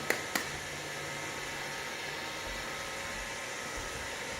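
Roomba robot vacuum running with a steady whir, after two light clicks right at the start.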